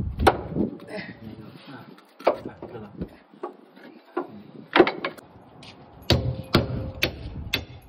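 Irregular metal knocks and clanks from hand tools being used on the car's suspension, about eight sharp strikes with a short ring after one of them near the end.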